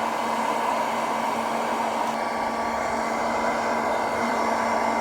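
Electric hot-air popcorn maker running: its fan blowing steadily with a constant hum.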